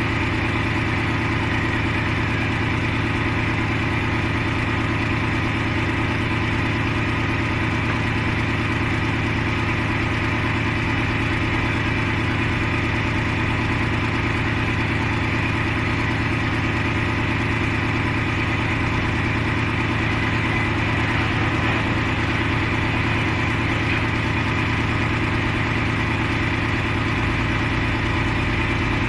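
A heavy engine idling, a steady unchanging drone with no revving.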